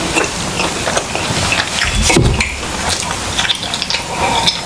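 Close-miked chewing with wet mouth clicks, then swallowing and gulping water from a glass near the end.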